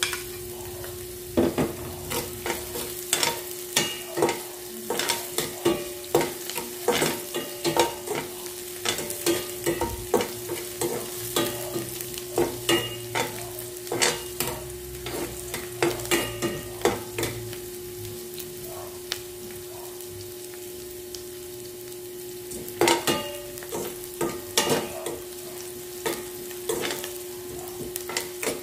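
Onion and garlic sizzling in hot oil in a nonstick frying pan while a spatula stirs them, scraping and knocking against the pan in quick runs of clicks, with a pause of a few seconds about two-thirds of the way through. A steady hum runs underneath.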